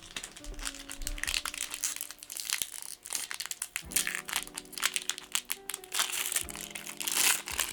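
Foil Pokémon TCG booster pack wrapper crinkling and tearing as it is ripped open by hand, a dense run of sharp crackles.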